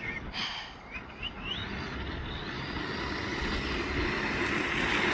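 Blackzon Smyter Turbo electric RC car running at speed, its motor and tyres growing steadily louder as it comes closer.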